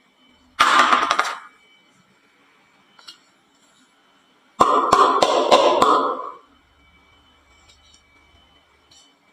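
Marbles clattering down a wooden marble-run slope and into a toy truck: a short rattling burst about half a second in, then a longer run of sharp clicks and ringing clatter from about four and a half seconds.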